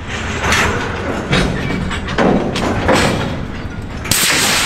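Freight cars on the move, with a series of heavy clunks and thumps over a low rumble. About four seconds in comes a sudden loud hiss of air, the brake-pipe hoses between a covered hopper and a tank car pulling apart as the cars separate.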